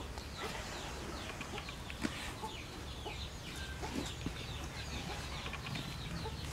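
Chickens clucking and peeping: many short, high, falling chirps scattered through the whole stretch over a low steady hum.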